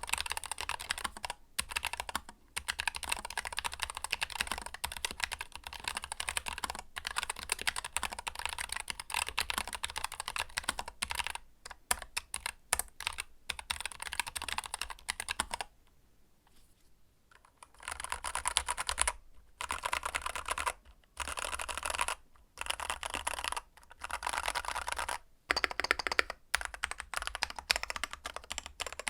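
Fast continuous typing on a Keychron K3 Pro low-profile mechanical keyboard, in runs broken by short pauses. The typing stops for about two seconds around the middle, then resumes on a Keychron K2 Pro full-height mechanical keyboard, whose keys have a deeper clacking sound.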